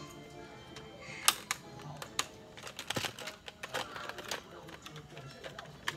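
Sharp plastic clicks and clacks from a toy dart blaster being handled and reloaded, the loudest about a second in, over background music.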